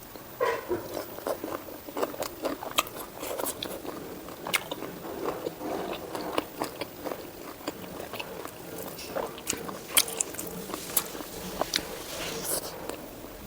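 Close-miked mouth sounds of a person eating pork fat with white rice: biting and chewing, with many irregular sharp wet clicks and crunches.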